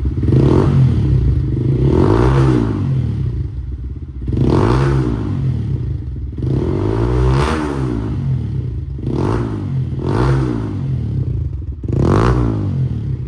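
Single-cylinder motorcycle engine with an aftermarket Yoshimura exhaust being blipped at the throttle, about seven short revs that rise and fall back to idle, a couple of seconds apart.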